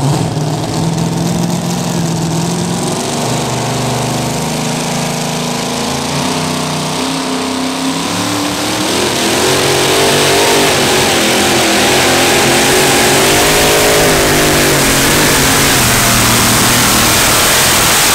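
Supercharged V8 of a super modified 2wd truck puller running at low revs, then revving up about nine seconds in as it drags the weight sled under full load, the pitch wavering as the tyres spin and grip.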